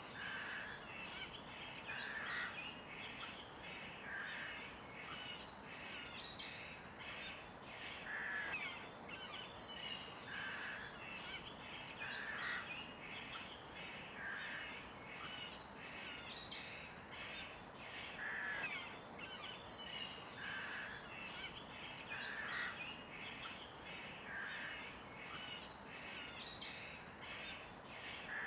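Several birds calling and singing together: many quick high chirps and trills, and a lower, rougher call that repeats about every two seconds, over a faint steady background hiss.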